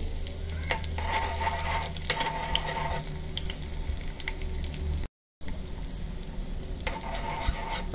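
Green chillies, ginger and garlic sizzling in hot ghee in a small pan (a tadka), with scattered little sputtering pops. The sound cuts out for a moment about five seconds in.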